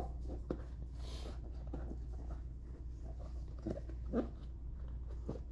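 Light rubbing, scraping and soft knocks of a rubber inner tube and tire being worked into a scooter wheel by hand, with a brief hiss about a second in, over a steady low hum.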